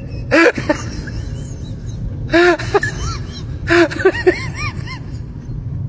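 A small animal's short, squeaky chirping calls, each rising and falling in pitch, in three quick clusters over a steady background hiss.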